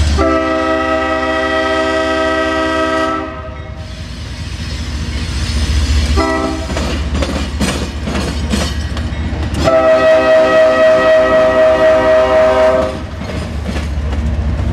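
Freight diesel locomotive's multi-chime air horn: a long blast, a brief short one about six seconds in, and a second long, loud blast from about ten to thirteen seconds in, sounded for a road grade crossing. Between and under the blasts run the locomotive's low engine rumble and the rhythmic clack of wheels over rail joints.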